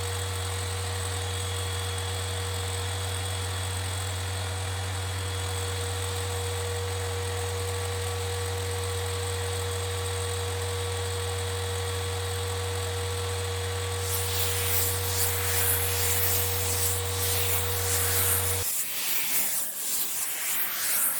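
Electric motor of a homemade table saw running with a steady hum. About two-thirds of the way in, a hissing, rasping noise joins it. Near the end the hum cuts off abruptly while the hiss carries on briefly.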